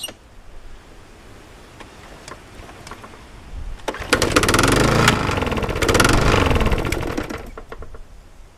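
Small petrol lawnmower engine, freshly fuelled and primed, firing up about four seconds in. It runs for a few seconds with its speed rising and falling, then drops away near the end.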